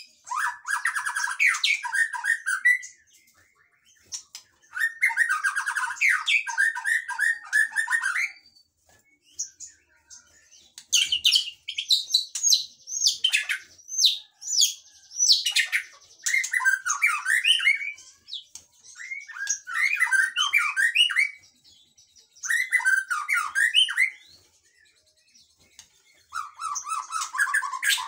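Caged songbirds singing loud, varied whistled phrases a few seconds long, about six in all, with short pauses between: an oriental magpie-robin, then a white-rumped shama.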